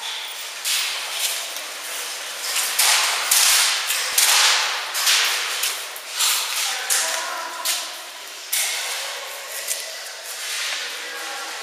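Camera handling and movement noise: a quick run of hissy, scuffing bursts as the camera wearer moves, with faint voices in the background.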